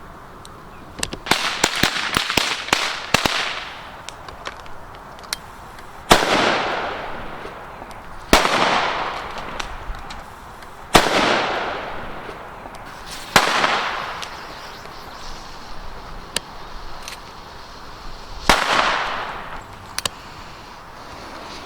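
Firecrackers exploding: a quick string of small cracks, then five separate loud bangs a few seconds apart, each followed by a long echo.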